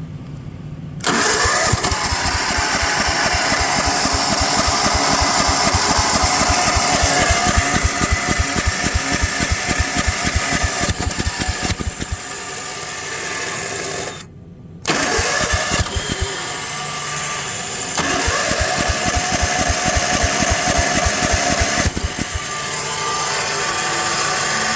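Small single-cylinder Tecumseh mower engine starting about a second in and running with a rapid, even firing beat. It runs while its carburetor floods with fuel, as the owner believes. It falters briefly near the middle and cuts off for a moment before running on.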